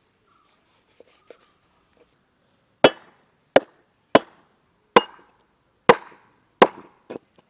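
A heavy knife chopping katla fish into pieces on a wooden chopping board: two light taps, then from about three seconds in six hard chops roughly one every 0.7 seconds and a lighter seventh.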